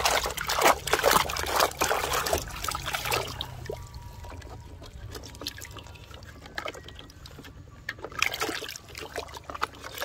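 Water trickling and splashing over toy trucks as they are washed of mud. It is loudest for about the first three seconds, then settles to a quieter trickle, with a brief louder splash a little past eight seconds in.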